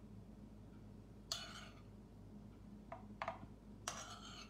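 A metal spoon scraping and clinking against a ceramic bowl while scooping pasta sauce: four short strokes, the first and last drawn out into brief scrapes.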